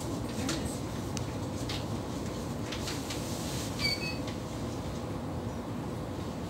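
Steady low rumble of a canal tour boat's engine, heard from inside its glass-roofed cabin, with scattered light ticks and a short high squeak about four seconds in.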